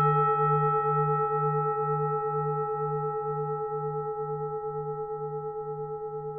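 Vietnamese pagoda bell in the long ring-out of a single strike: several steady tones slowly fading, the low hum wavering at about two pulses a second.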